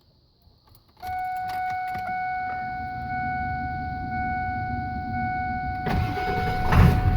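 Ford 7.3 Power Stroke V8 diesel truck, key turned on: a steady electronic warning tone sounds about a second in. Near the end the engine cranks and fires on a cold start.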